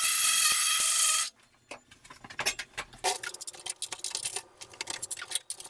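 A power tool runs with a steady, high whir and stops about a second in. Scattered clicks, knocks and scraping of tools and metal parts being handled follow.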